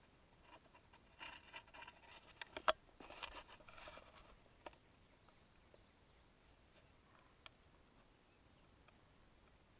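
Near silence broken by faint rustling and crackling for about three seconds, starting about a second in, with one sharp click in the middle of it and a couple of faint ticks later.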